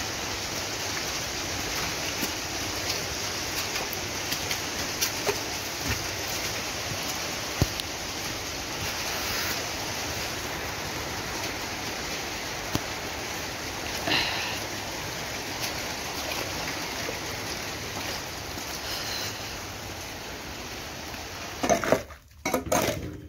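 Steady rain falling on a flooded, muddy yard: an even hiss with a few small ticks of drops. Near the end it breaks off, with a few sharp knocks.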